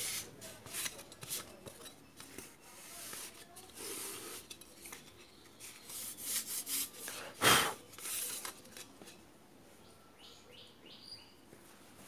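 Hard plastic parts of an old radio cassette recorder's cabinet being handled and lifted off: rubbing, scraping and clicking, with one sharp knock about seven and a half seconds in.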